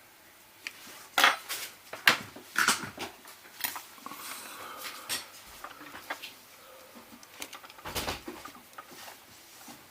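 Scattered sharp clicks and light taps of small tools and iPod Nano parts being handled on a work surface during reassembly, the loudest about one and two seconds in.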